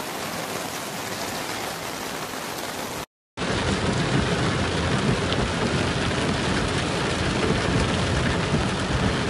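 Heavy rain falling in a steady hiss. There is a brief break in the sound about three seconds in, after which the rain is louder and has more low rumble.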